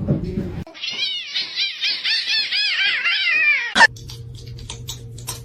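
A cat giving a rapid run of high-pitched mews, about four a second, which stops abruptly. A steady low hum with a few faint clicks follows.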